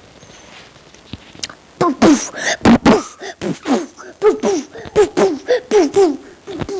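A young child's voice making rapid wordless sounds, about three a second, each one falling in pitch, with a few sharp clicks about two seconds in.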